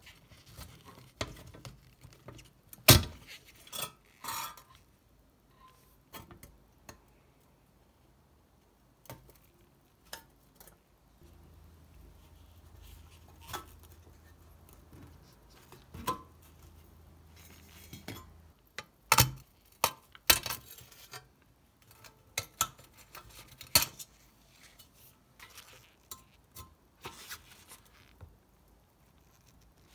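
Scattered metallic clicks, clinks and knocks from a rusty pressed-steel Tri-ang toy truck being taken apart by hand, with a screwdriver working its bent sheet-metal tabs. The loudest knocks come about three seconds in and again around nineteen to twenty seconds in.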